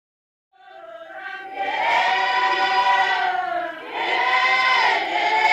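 A choir of voices singing long, sustained notes. It fades in from silence during the first second or so, then carries two long phrases with a brief dip about four seconds in.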